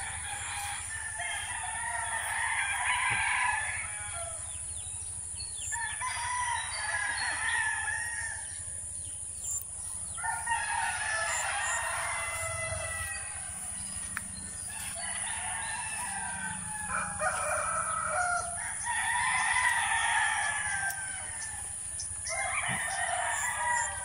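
Roosters crowing again and again, about six long crows spaced a few seconds apart.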